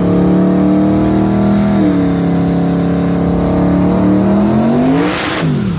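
Drag car engine at full throttle down the strip: the pitch climbs, drops at a gear shift about two seconds in, then winds up again. Near the end the car passes with a loud rush and its pitch falls away steeply.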